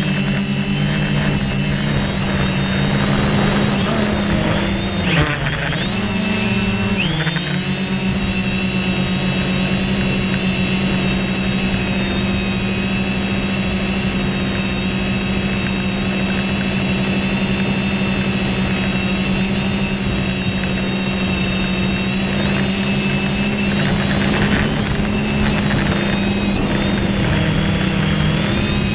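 Drone's electric motors and propellers running steadily, close and loud as if on its own microphone, with a high steady whine over a lower buzz; the pitch drops and comes back up about five to seven seconds in.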